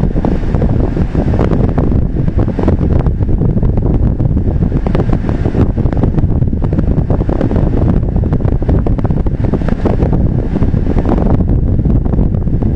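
Road and wind noise inside a moving car, picked up by a dashcam: a loud, steady low rumble.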